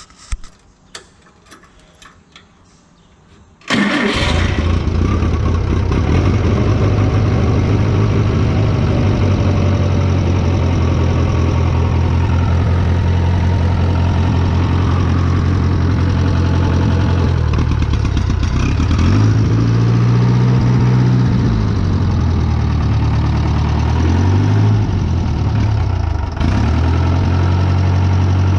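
Wisconsin VH4D air-cooled four-cylinder engine on a Vermeer 630A stump grinder, starting cold and then running. A few light clicks come first, then the engine fires suddenly a few seconds in and runs steadily, its speed rising and falling a few times about two-thirds of the way through.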